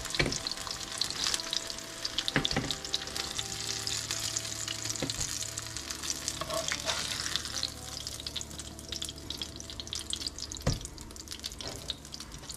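Shallow oil sizzling in a frying pan with potato chapli kababs frying in it, while a slotted spatula lifts them out, with a few sharp knocks of the spatula on the pan.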